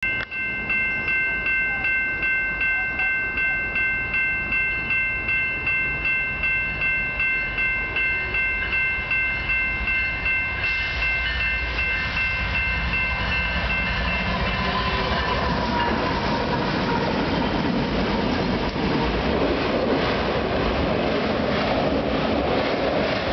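A railroad crossing bell rings about twice a second. From about 11 seconds in, an approaching Union Pacific freight train rises in volume and takes over. Diesel locomotives and then autorack cars roll past with a steady rumble and rattle of wheels on rail.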